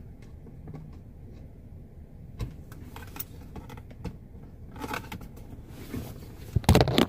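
Phillips screwdriver working a screw in a car's plastic overhead console: scattered light clicks and scrapes of the tool against the screw head and plastic trim, the screw spinning free in its hole instead of backing out. A louder burst of clattering and rustling near the end.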